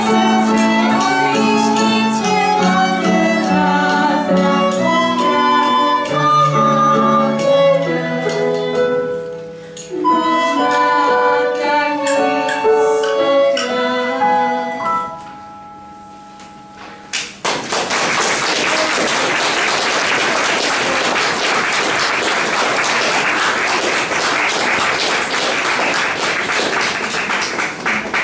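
A girl sings a song accompanied by violin and acoustic guitar; the music ends about halfway through. After a brief pause, audience applause follows and runs on steadily.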